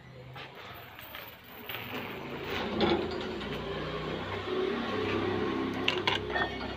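A German Shepherd's metal tether chain dragging and clinking across a tiled floor as the dog moves about, with sharper clinks about three seconds in and again near the end.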